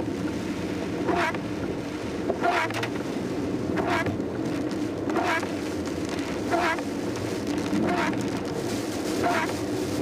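Windshield wipers swishing across rain-soaked glass about seven times, one sweep every second and a half or so. Under them runs the steady sound of a car's engine and its tyres on a wet road, heard from inside the cabin in heavy rain.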